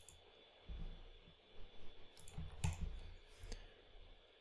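A few faint, separate clicks of a computer mouse and keyboard, the sharpest about two and a half seconds in, with soft low thumps between them.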